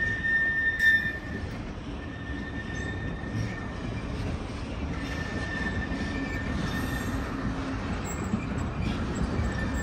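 A freight train of covered sliding-wall wagons rolling past, its wheels rumbling steadily. A high, steady squeal comes and goes over the rumble, loudest in the first second or so, and there is a single knock about a second in.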